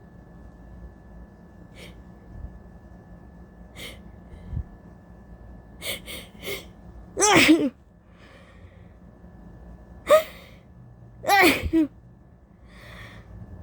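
A woman sneezing from allergies. A few quick sniffing in-breaths come first, then a loud sneeze about seven seconds in, a short sharp burst about three seconds later, and a second loud sneeze soon after.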